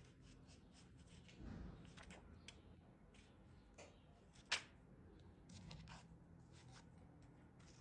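Near silence with a low steady hum and a few faint, scattered clicks and taps, the sharpest about halfway through.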